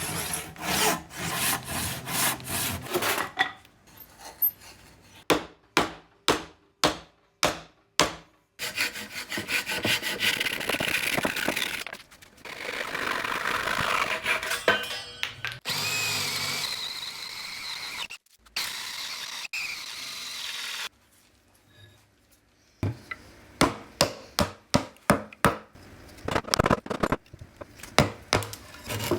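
Green wood being shaved with hand tools on a shavehorse: bursts of quick scraping strokes, a run of sharp knocks about five seconds in, then long continuous scraping cuts, and more quick strokes near the end.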